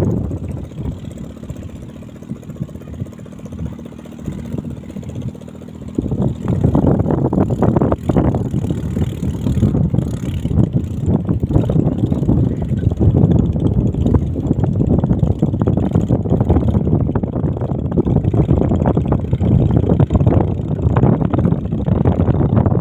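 Small 7 hp racing-boat engine running on test with a racing propeller: a steady, fairly quiet hum at first, then about six seconds in the sound jumps to a loud, rough rumble that carries on, as the engine is opened up.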